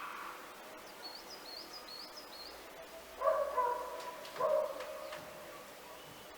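A bird chirps a quick run of short high notes, then an animal gives two louder, drawn-out calls, the first about three seconds in and the second just over a second later.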